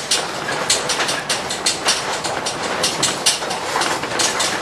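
Rattling and banging inside a towed trailer tiny house on the move: the structure and loose contents jolting with rapid, irregular knocks over a steady road rumble.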